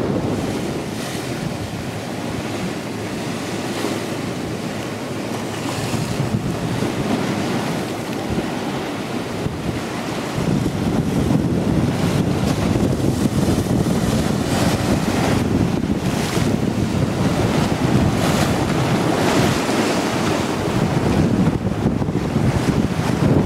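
Wind buffeting the microphone in gusts, over the wash of choppy water. The gusts grow stronger about halfway through.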